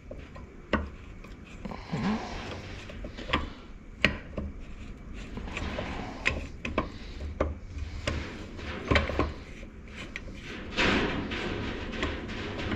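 Gearbox parts being handled and fitted together by hand: scattered clicks and knocks with rubbing between them, and a longer scraping noise near the end.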